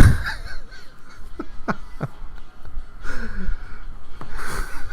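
A man straining at a put-on voice, giving a few short odd vocal sounds with sliding pitch rather than clear words. A sharp knock comes right at the start.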